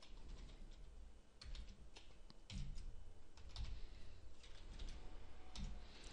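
Faint typing on a computer keyboard: a handful of separate, irregularly spaced keystrokes.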